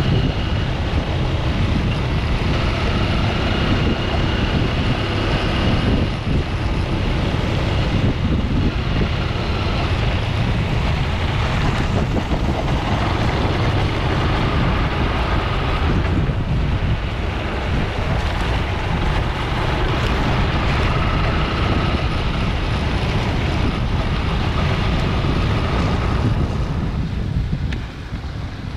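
Dirt bike engine running while riding, with heavy wind buffeting on the microphone; the engine note comes and goes under the wind noise, which eases off near the end.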